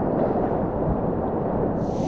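Whitewater rapid rushing around a kayak, a dense, steady low rush of churning water close on the camera microphone. Just before the end a brighter splashing hiss comes in over it.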